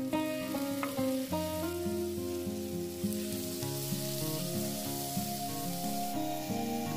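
Tomato pieces sizzling in hot oil in a frying pan with grated carrot and onion, stirred with a plastic spatula. Background guitar music plays alongside.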